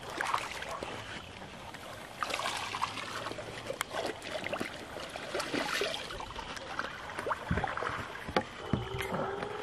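Lake water sloshing and splashing close by with many small irregular splashes and drips, as a fabric fish sling is swished and rinsed in the water just after a carp's release.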